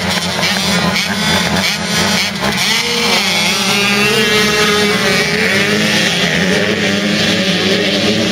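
Several youth motocross bikes launching off the start line together, their engines revving hard and rising in pitch as they accelerate away.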